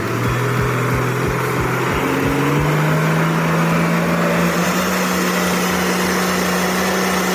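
Heavy truck engine running under load; its pitch rises about two to three seconds in and then holds steady, while a low regular thudding of about three a second dies away at the same point.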